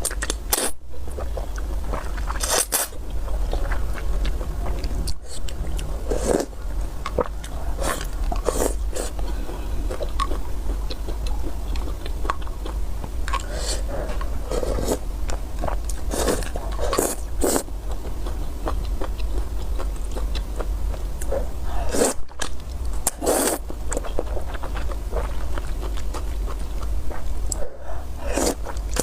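Close-miked eating of white noodles in soup: irregular chewing and mouth sounds with scattered short crunches and scrapes, over a steady low hum.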